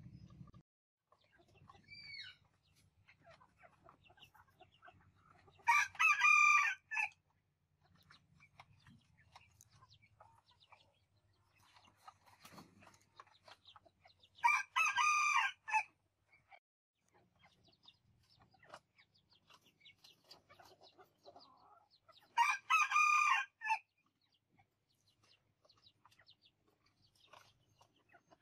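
Vietnamese Northern bantam rooster (gà tre Bắc tít) crowing three times, each crow short, about a second and a half long, and about eight seconds apart.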